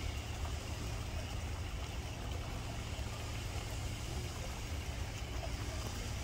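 Steady outdoor background noise: a constant low rumble with an even hiss over it, and no distinct calls or events.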